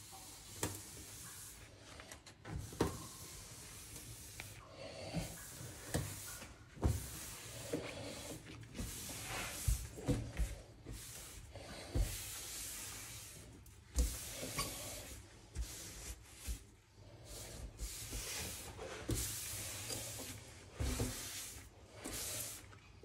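Scattered knocks and bumps with rubbing and a hiss-like noise, irregular and unrhythmic.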